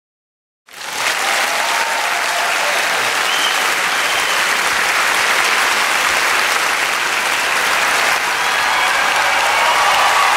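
Large theatre audience applauding steadily, fading in within the first second.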